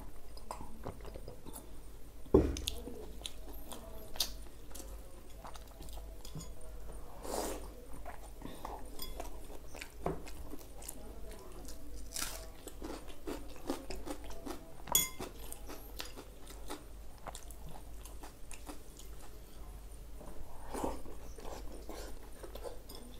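Close-miked sounds of a man eating paratha and boiled eggs with his hands: chewing, biting and lip smacks, with many small clicks throughout. A loud knock sounds about two seconds in.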